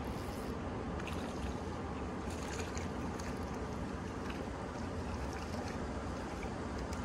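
Steady rush of a shallow river flowing over stones, with a few faint light ticks above it.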